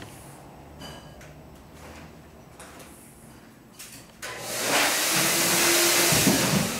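Two-stage MetroVac electric blower switched on about four seconds in, then running with a loud, steady rush of air and motor, ready to inflate a culvert plug. Before it starts there is only a low hum and a few small clicks as the hose is handled.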